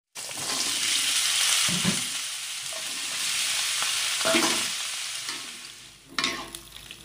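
Ground spice paste and then sliced green chillies sizzling in hot oil in a wok, stirred with a metal spatula that scrapes the pan a few times. The sizzle fades near the end, with a couple of spatula knocks.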